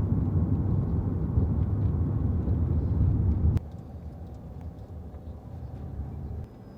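Vehicle driving: a steady low rumble of road and engine noise. About three and a half seconds in it drops off suddenly to a fainter low rumble.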